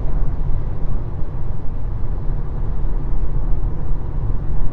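Steady low rumble with a hiss above it, like road noise inside a moving car's cabin, picked up by a phone's microphone.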